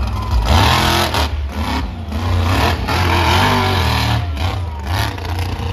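Monster truck engine revving hard in repeated throttle surges, its pitch rising and falling over a deep steady rumble.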